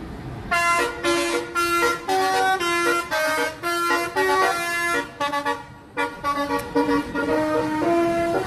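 Bus telolet horn playing a fast tune of short notes that change pitch from one to the next, starting about half a second in.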